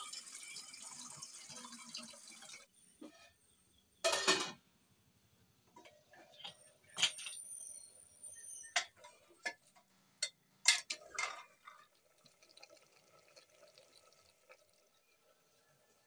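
Water poured from a steel jug into an aluminium pot for the first two and a half seconds. Then metal pots, lids and utensils clatter and clink: a loud clatter about four seconds in and a run of sharp knocks and clinks until about twelve seconds in.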